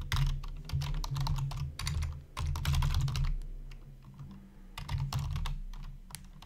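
Computer keyboard typing, quick runs of keystrokes in several bursts with a short pause about two-thirds of the way through.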